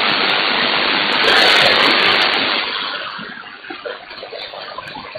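Malachite DSP shortwave receiver hissing loudly with band noise on the 3.5 MHz (80 m) band, all above about 4 kHz cut off by its filter, with the preamplifier on, which the operator says should be off on this band. The hiss sinks away over the last two seconds, leaving faint wavering signals.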